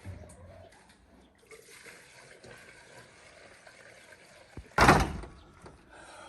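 A single loud bang about five seconds in, just after a faint click, over low background noise.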